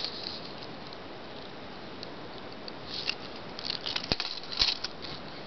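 Metal chains and links of a layered gold-tone collar necklace clinking and jingling lightly as it is handled, in scattered small clicks that start about halfway through, after a stretch of faint steady hiss.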